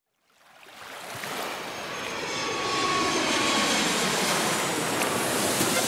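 Sportfishing boat running at speed: engine and rushing bow spray, a steady noise that fades in over the first two seconds and then holds.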